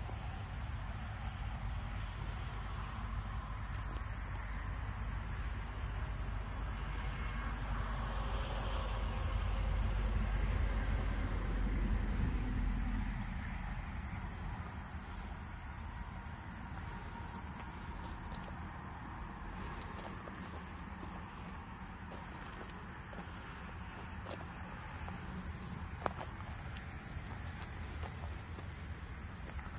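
Insects chirring steadily in the background, with a low rumble that swells to about twelve seconds in and then dies away, and a single sharp click late on.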